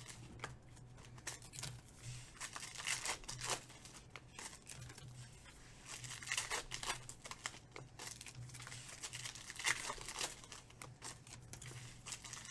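Foil wrapper of a trading-card pack being torn open and crinkled by hand, in irregular crackling bursts over a low steady hum.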